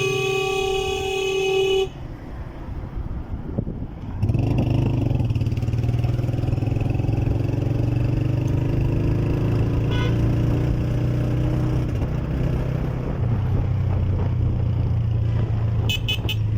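A vehicle horn sounds one long steady note that cuts off about two seconds in. After a short lull, a vehicle engine runs with a steady low drone, its pitch slowly rising as it pulls. Near the end come a few quick high beeps.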